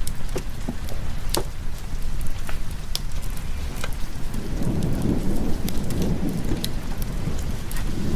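Steady rain with a low rumble of thunder that rolls in about halfway through. Scattered sharp clicks sound throughout.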